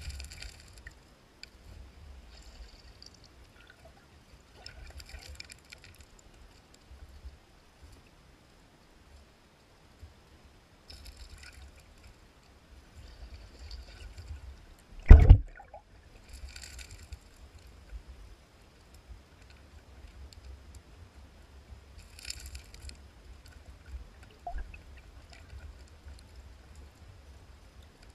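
Aquarium water gurgling and trickling in short spells a few seconds apart over a low rumble, with one loud thump about halfway through.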